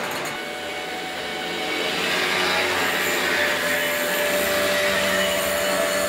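Small two-stroke moped engine running, typical of a Simson Schwalbe, growing louder from about two seconds in, with a steady whining tone in the second half.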